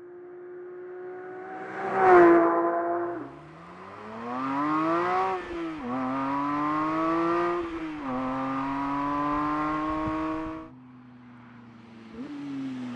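Porsche 911 GT3 Touring's naturally aspirated 4.0-litre flat-six and exhaust: a loud rev about two seconds in, then a hard pull with the pitch climbing through the gears, dropping at two upshifts. The throttle lifts about three seconds before the end, leaving a low drone broken by one short blip.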